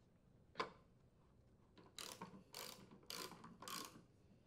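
Socket ratchet tightening a lawn mower's rear wheel mounting bolt: a single knock about half a second in, then four short bursts of ratchet clicking about half a second apart.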